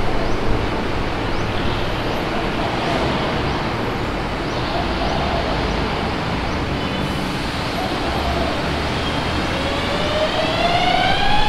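Busy city street traffic: a steady rush of passing cars and engines with a low rumble. Near the end a pitched tone rises and then holds.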